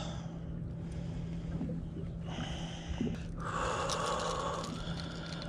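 A person breathes out hard twice, about two and four seconds in, over a steady low hum.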